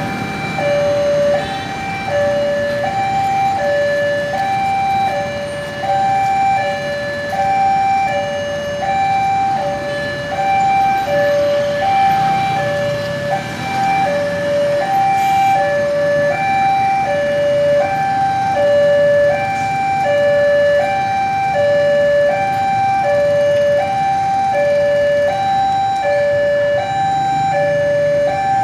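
Railway level-crossing warning alarm sounding a steady electronic two-tone signal, high and low notes alternating about twice a second, warning that a train is approaching.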